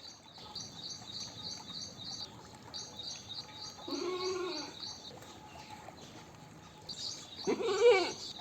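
A goat bleating twice, wavering calls about a second long: one about four seconds in and a louder one near the end. Fast, evenly repeated high chirping continues in the background.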